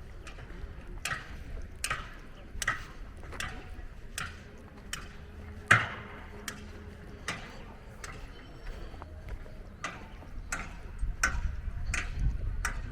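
Footsteps of someone walking on a hard surface at a steady pace, about one step every three-quarters of a second, with one sharper knock about six seconds in, over a low rumble that grows louder near the end.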